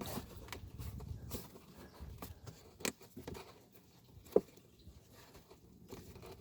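Scattered small clicks and knocks of hands working on plastic car parts, with one sharper click about four seconds in.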